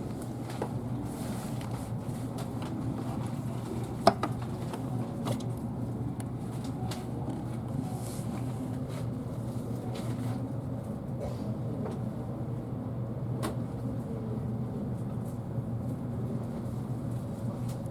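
Steady low hum inside the passenger cabin of a Kintetsu Hinotori limited express train, with scattered light clicks and one sharp knock about four seconds in.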